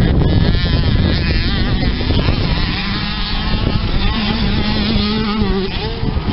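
Two youth motocross bikes' engines revving hard as they race up a dirt hill, their pitch rising and falling repeatedly with the throttle, with one engine holding a steady note for a second or so past the middle.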